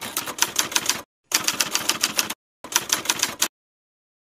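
Typing sound effect: rapid key clicks, about seven a second, in three runs with short breaks. They stop about three and a half seconds in.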